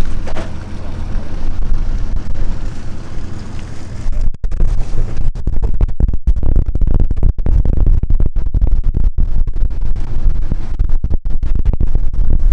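Wind buffeting the microphone aboard a boat under way, over a steady low rumble. The wind noise crackles and cuts out repeatedly from about four seconds in.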